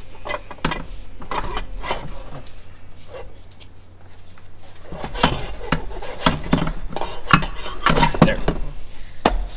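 Irregular metallic clanks and knocks as the Ferrari 458's stock rear muffler section is worked free and lifted out. The clanking eases off briefly in the middle, then comes quicker and louder.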